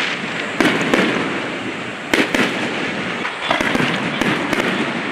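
Aerial firework shells bursting overhead: a string of sharp bangs, a few a second at times, over a continuous noisy background.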